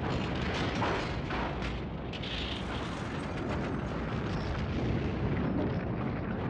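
Steel rocket service tower coming down in an explosive demolition: a continuous heavy rumble of the falling structure, with sharp cracks about a second in.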